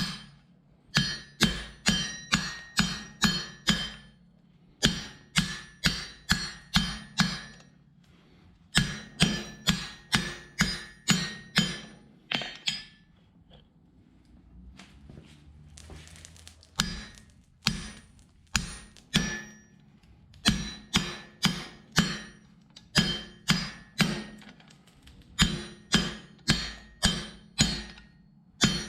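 Hand hammer striking hot steel bar stock on an anvil, shouldering a 5/8-inch pin down to 1/2 inch: runs of ringing blows about two to three a second, broken by short pauses, with a brief hissing swell about halfway through.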